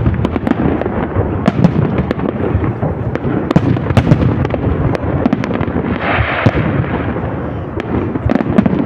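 A fireworks display going off, with many sharp bangs and cracks following one another without a break. There is a crackling hiss about six seconds in.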